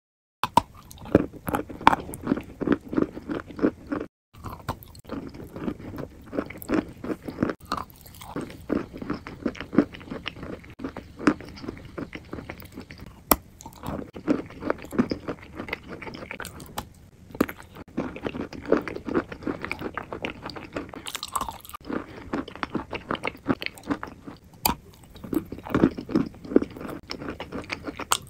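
Chunks of Glinomel "Solnyshko" edible clay being bitten and chewed, with runs of sharp crunches several a second. The sound drops out briefly about four seconds in.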